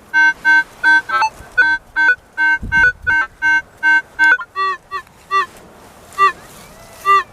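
Minelab CTX 3030 metal detector sounding repeated short target beeps as the coil is swept back and forth over a signal, about two or three a second. About four and a half seconds in the tone changes to shorter, higher beeps with a slight dip in pitch.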